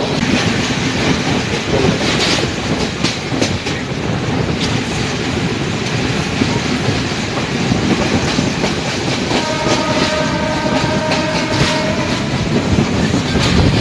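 Moving passenger train heard from its open doorway: wheels clattering over the rail joints amid steady running noise. About nine seconds in, the train's horn sounds one steady multi-note blast for about two and a half seconds.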